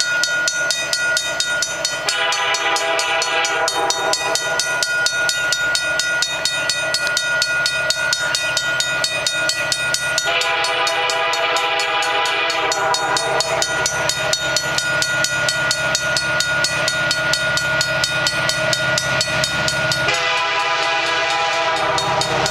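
Approaching freight locomotive's air horn sounding three long blasts, several seconds apart, for the grade crossing, over the steady rapid ringing of the crossing bell.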